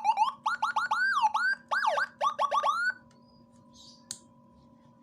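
Whelen HHS-type electronic siren sound chip playing a fast run of short rising chirps, broken by a couple of longer down-and-up sweeps. The chirps stop about three seconds in, then come a single click and a faint steady hum.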